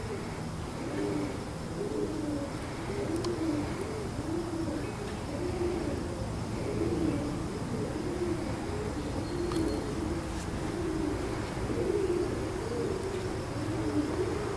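Pigeons cooing: a continuous run of low, warbling coos, one after another.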